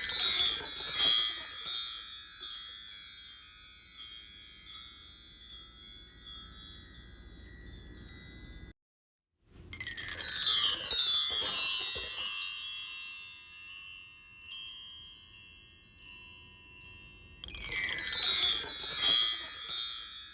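Tree chime made of hanging clad-metal bars, swept three times. Each sweep is a quick run of bright ringing notes falling in pitch, then left to ring out and fade. The sweeps come at the start, about ten seconds in and near the end.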